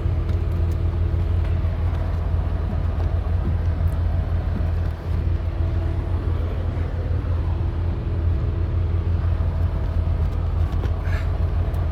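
An engine idles steadily with a low, even hum. Faint clicks and rustles come from the air filter being handled and fitted.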